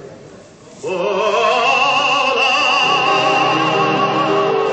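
Recorded tango song with a sung vocal. About a second in, the singer takes up one long held note with wide vibrato over a sustained orchestral chord.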